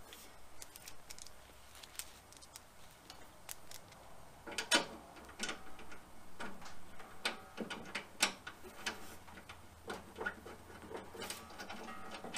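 Irregular light metallic clicks and taps of a wrench working a brass gas-hose fitting tight on the back of a MIG welder, with a few sharper clacks among them.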